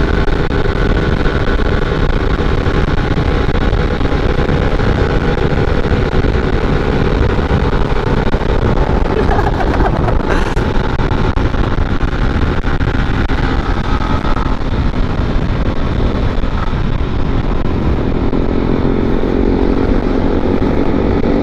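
A 150 cc underbone motorcycle running at speed under throttle, with heavy wind rush on the microphone. There is a brief click about ten seconds in, and the engine note grows louder near the end.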